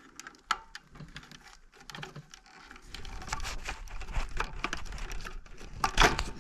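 Clicking and rattling of hands handling the Antminer Z15's cables and power supply. About three seconds in, the handling becomes busier, with a low scraping rumble, and there is one loud knock near the end.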